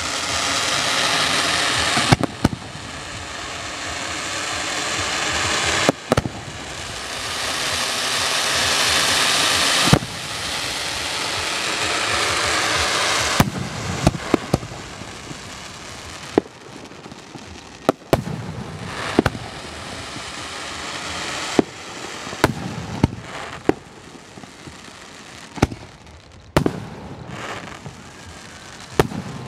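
Aerial firework shells bursting: for the first half a long, loud hissing crackle broken by sharp bangs, then separate bangs every second or two.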